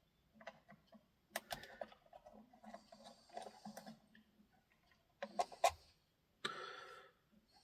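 Small screwdriver working the tiny crosshead screws out of a Sony ICF-SW100's plastic case: faint scratching and ticking of the bit in the screw heads, with a few sharper clicks about a second and a half in and again past five seconds, and a brief scrape near the end.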